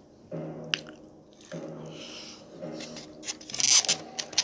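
A fork rubbing and scraping in a takeout container of oxtail and rice, in rough bursts that are loudest about three and a half seconds in, over a television playing in the background.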